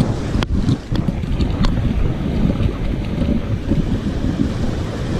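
Strong wind buffeting the microphone over the rumble of ocean surf.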